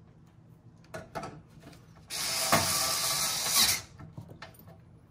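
Cordless electric screwdriver running for under two seconds, driving a screw into the computer case's sheet-metal drive cover. A few light clicks and taps come just before it and again after it stops.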